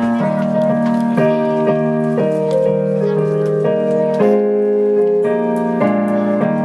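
Keyboard playing a hymn introduction in sustained block chords, the chord changing about every half second.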